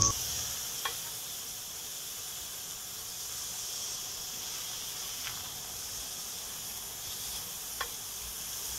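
A paratha frying in ghee in a nonstick pan, with a steady sizzle throughout and three faint taps.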